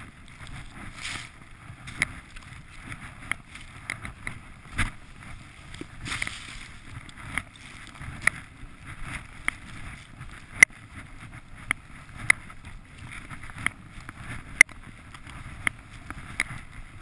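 Skis rushing through deep powder snow, with wind buffeting the microphone, punctuated by sharp clicks about once a second with the rhythm of the turns and pole plants.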